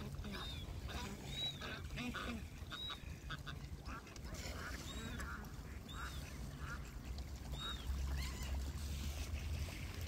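Ducks quacking in short repeated calls, with a high, arched chirp recurring every second or so, over a low rumble that swells near the end.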